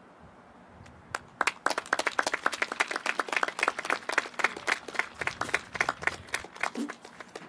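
A small group of people clapping their hands: it begins about a second in, goes on as quick, overlapping claps, and thins out near the end.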